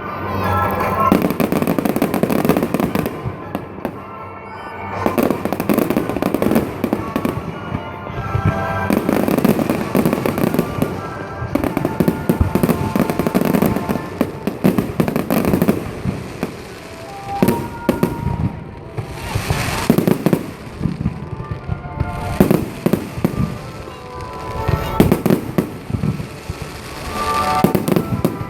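Fireworks display: a continuous, irregular series of bangs and crackles from exploding aerial fireworks, with music playing underneath.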